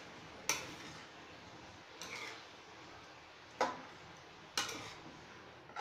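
Metal spoon stirring chicken pieces in sauce in a frying pan, striking the pan's rim and side in four sharp clinks a second or so apart.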